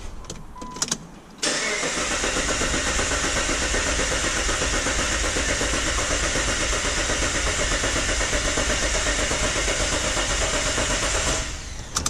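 The starter motor cranks the 2.7 litre V6 of a 2008 Suzuki Grand Vitara without it starting, in an even pulsing rhythm, for a relative compression test. It begins after a few clicks and cuts off after about ten seconds. The rhythm is steady: compression on all six cylinders turns out even, so a compression fault is unlikely.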